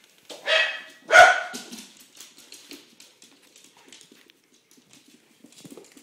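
A young dog barks twice in quick succession, the second bark louder. Softer scuffling and claw clicks on the laminate floor follow as the dogs play.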